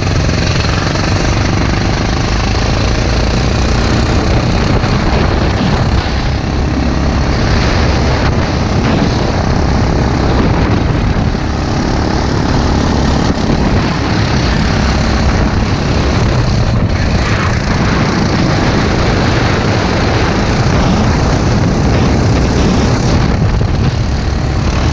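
Sprint go-kart engine running hard at racing speed, heard from a camera mounted on the kart, loud and steady with only small dips in level as the driver lifts for corners.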